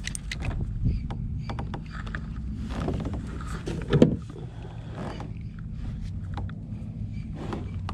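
Fishing gear being handled aboard a plastic kayak: scattered clicks and knocks and one loud thump about four seconds in, over a steady low rumble.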